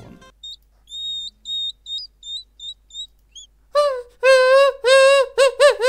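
Faint, short, high chirps, about nine in three seconds. Then a person's high squealing voice imitating a hedgehog: about six loud, drawn-out squeals.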